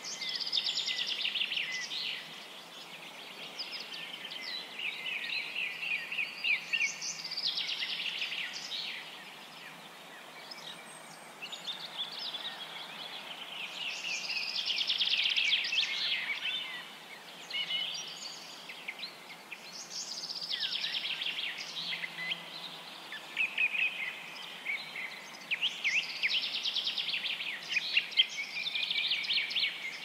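Small songbirds chirping and twittering in overlapping trilled phrases that swell and fade every few seconds, over a faint steady hiss.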